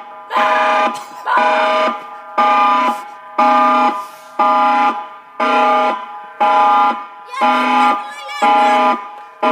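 Tsunami warning siren sounding a pulsed alert: a loud chord of several steady tones, on for most of each second and off briefly, about one blast a second. It sounds like a video game. A brief high wavering sound comes in about eight seconds in.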